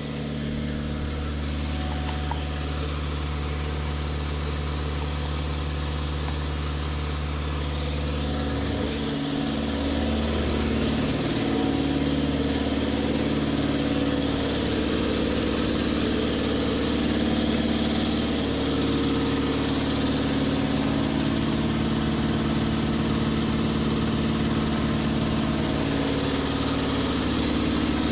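Two freshly rebuilt electric piston air compressors running together, a steady mechanical hum as they pump up their tanks; the sound shifts and grows a little louder about nine to twelve seconds in.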